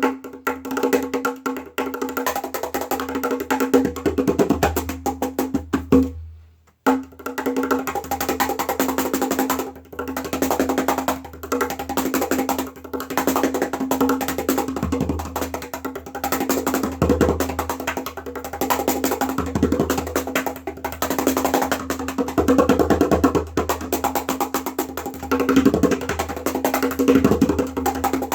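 Meinl Turbo Slaptop Cajon, a tabletop slap-played cajon, played by hand in a fast, continuous groove that mixes deep bass strokes with sharp, crisp slaps. The playing stops briefly about six seconds in, then carries on.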